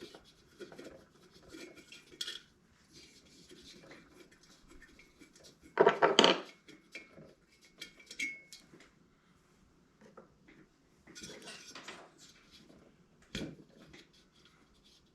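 Metal parts of a diesel heater and hand tools clinking and scraping during disassembly. The clicks are scattered, with a louder clatter about six seconds in and another cluster near the end.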